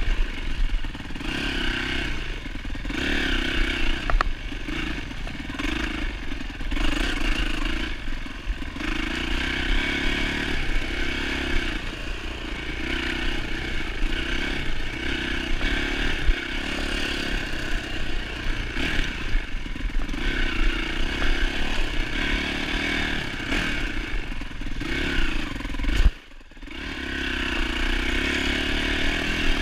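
Four-stroke single-cylinder engine of a 2007 Yamaha YZ450F dirt bike ridden on a trail, the throttle opening and closing every second or two. The sound drops away abruptly for a moment about 26 seconds in, then comes back.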